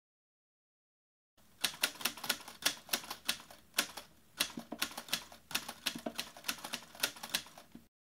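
Manual typewriter typing: a fast run of sharp key strikes as the typebars hit the paper, starting about a second and a half in, with short pauses between words, and stopping just before the end.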